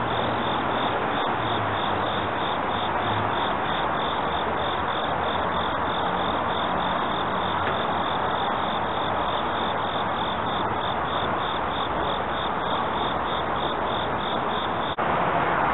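Insects chirping in a steady rhythm, about three chirps a second, over a steady hiss; the chirping cuts off abruptly near the end.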